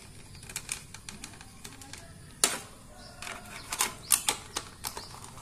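Clicks and taps of a plastic cover being handled and pressed back into place over a digital scale's power transformer, with one sharp knock about halfway through and a quick run of clicks near the end.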